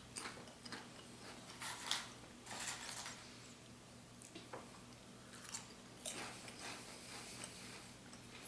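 Faint scattered rustling, crunching and clicking handling noises, the loudest about two seconds in, over a low steady hum.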